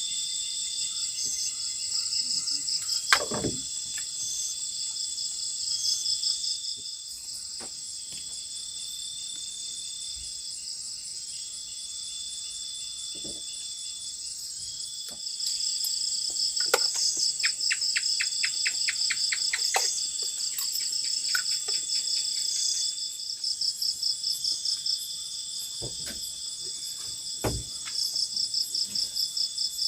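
Night chorus of crickets and other insects: steady high-pitched trilling, with a lower chirp repeating every second or two and a few scattered knocks and clicks.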